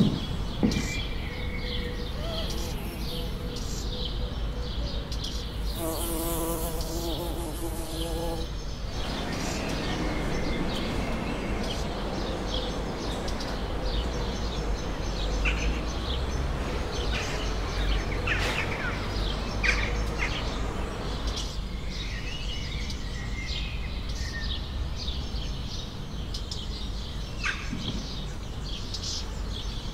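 Outdoor ambience: scattered short bird chirps over a steady low rumble, with a pitched buzzing sound from about six to nine seconds in.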